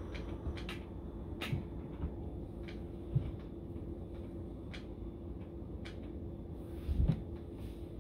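Scattered light knocks and dull thumps of hands and body weight on a kitchen countertop during incline push-ups, the loudest thump about seven seconds in, over a steady hum.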